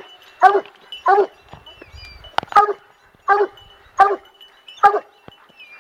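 A Plott hound barking in a steady, regular rhythm, about one bark every three-quarters of a second.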